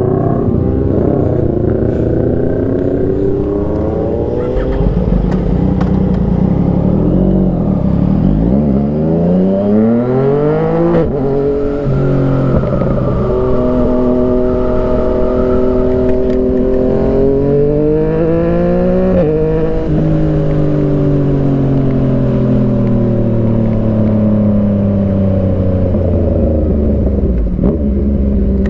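Motorcycle engine while riding: its pitch climbs as it accelerates, drops sharply at gear changes about eleven and nineteen seconds in, holds steady between, then sinks slowly as the bike slows. A low rumble runs underneath.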